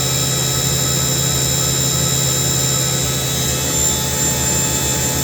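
Haas VF2 vertical machining center's spindle running at its maximum 10,000 RPM: a loud, steady high-pitched whine with several held tones over a low hum.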